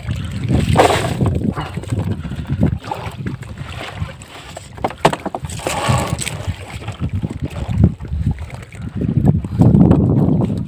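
A wet bag net heavy with shrimp and small fish being handled and pushed down by hand, with irregular rustling, knocks and splashes over a low wind rumble on the microphone.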